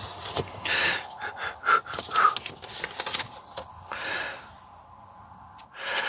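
A man's breathing close to the microphone: a string of short breathy exhales and sniffs, some with a faint whistle, among a few small clicks, quieter for a moment before one more breath near the end.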